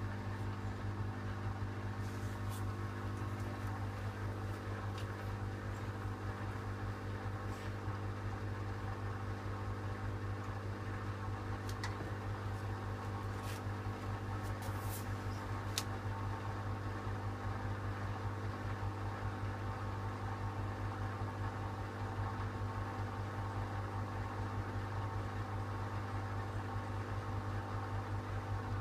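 Schulthess Spirit 6155 front-loading washing machine running empty early in a spin programme: a steady motor hum with several faint steady tones, and a few light clicks in the first half.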